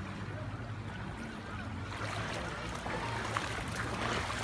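Floodwater splashing and sloshing around people wading through it, louder from about halfway through, over a steady low hum.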